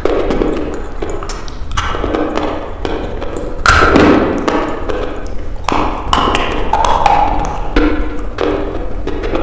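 Close-miked chewing and wet mouth sounds of someone eating fatty mutton, with lip smacks and sharp clicks in an uneven rhythm.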